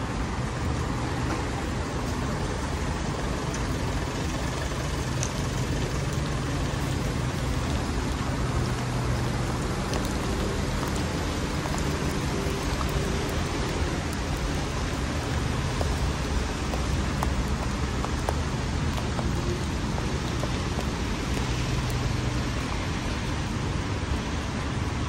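Steady rain and city road traffic: tyres on the wet road and a low engine hum from slow-moving trucks and cars, with scattered small drips.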